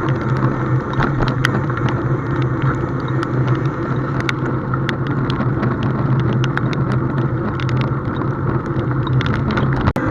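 An engine running steadily with a low, even hum, with many small clicks and taps over it. The sound cuts out briefly near the end.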